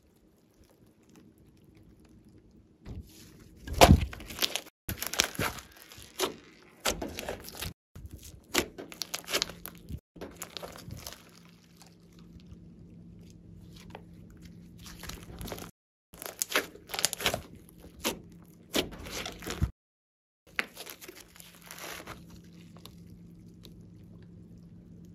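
Thick glossy slime being stretched and squeezed by hand, crackling and popping in irregular clusters with short silent breaks; the loudest crack comes about four seconds in.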